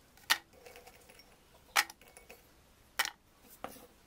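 Oreo cookies dropped one at a time into a blender jar, each landing with a sharp click, four in all, spaced a second or so apart.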